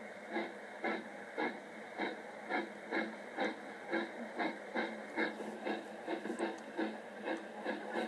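Steam-locomotive chuffing on a recording, an even beat of about two chuffs a second, played back through a small speaker.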